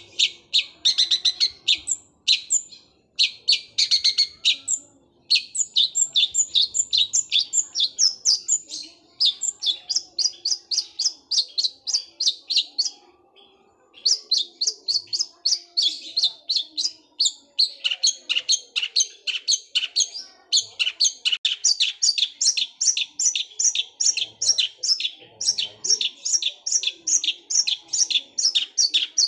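Long-tailed shrike (cendet) singing a rapid-fire run of sharp high chirps, about five or six a second, the fast chatter likened to a sewing machine. The runs go on for several seconds at a time, broken by brief pauses.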